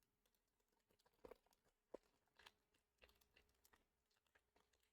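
Near silence, broken by a few faint, brief ticks and rustles of trading cards and foil packs being handled.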